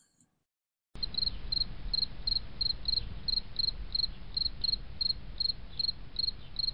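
Cricket chirping in an even rhythm, about three short chirps a second, over a low rumbling background. It starts abruptly about a second in, after near silence.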